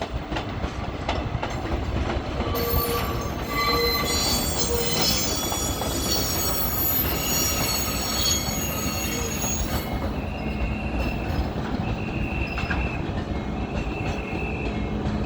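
A train running on rails with a steady low rumble and high-pitched wheel squeal. The squeal is a cluster of high tones from about two seconds in until about two-thirds through, then gives way to a series of shorter squeals at a single pitch.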